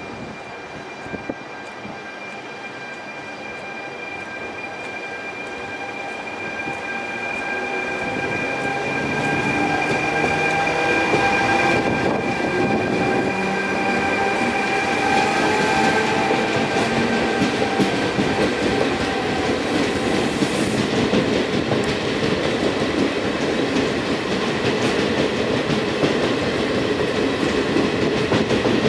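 Trenitalia E464 electric locomotive pulling away from a stop with a passenger train, its traction equipment giving steady high whining tones and a rising motor whine as it accelerates. It grows louder over the first ten seconds as it comes past, then the coaches roll by with a steady rail rumble.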